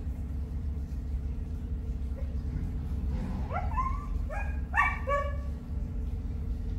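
A pet animal calling: about four short calls, each sliding up in pitch, come close together from about three to five seconds in, over a steady low hum.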